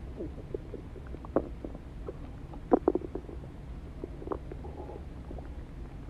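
Human stomach growling: a string of short bubbly gurgles over a steady low rumble, loudest in a quick cluster of gurgles near the middle.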